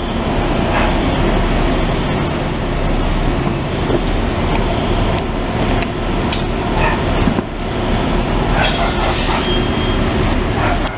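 A large vehicle's engine running steadily and loud, a continuous low rumble, with a thin high whine from about a second and a half in that lasts a couple of seconds.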